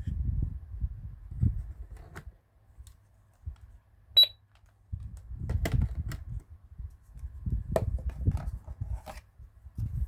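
Toy cash register being handled, with soft knocks, rubbing and clicks of plastic. About four seconds in it gives a single short, high beep, the loudest sound here.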